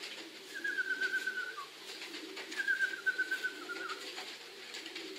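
Pigeons cooing steadily, with a high descending warbled call heard twice, about two seconds apart.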